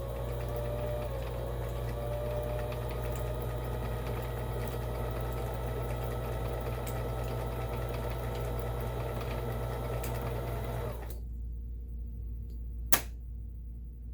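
Kenmore 17922 electronic sewing machine running steadily as it sews a decorative stitch, then stopping suddenly about eleven seconds in. A single sharp click follows near the end.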